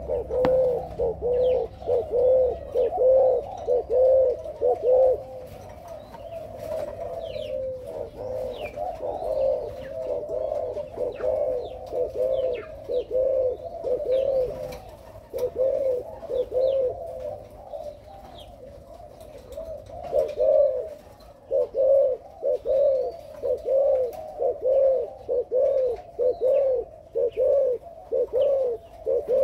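Spotted doves cooing: a long run of short, evenly paced coos, about two a second, that thin out for a few seconds past the middle and then pick up again.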